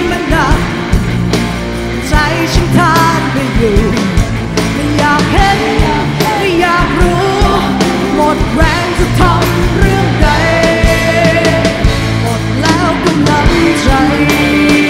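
Live rock band performing with a female lead singer singing in Thai, electric guitars and drums under her voice.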